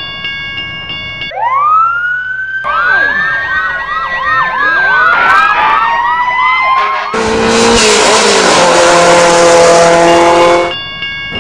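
Dubbed emergency-vehicle siren sound effects: several sirens wailing and yelping over one another, rising and falling in pitch, then a long blaring horn blast from about seven seconds in. A level-crossing warning bell chimes briefly at the start and again just before the end.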